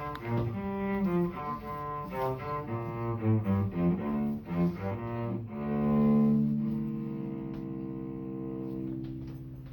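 Solo cello playing a closing tune: a run of short bowed notes, then a long held final note that fades away near the end.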